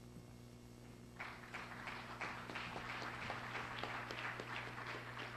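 Audience applauding, starting about a second in, over a steady low electrical hum.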